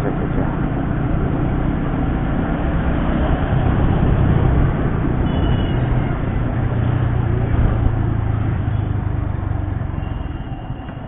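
Motorcycle ridden at speed: the engine runs steadily under a heavy rush of wind noise, its hum strongest in the middle and easing off near the end.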